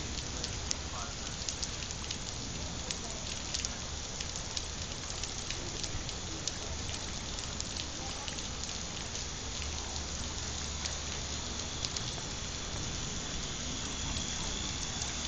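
Steady rain, with many scattered sharp ticks of drops striking a hard surface over a constant low rumble.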